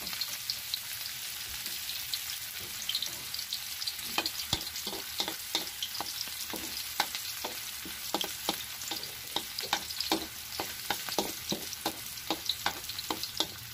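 Garlic and onion sizzling in hot oil in a pan as they soften and brown. From about four seconds in, a utensil stirring them knocks against the pan in a quick, uneven rhythm of two or three strokes a second.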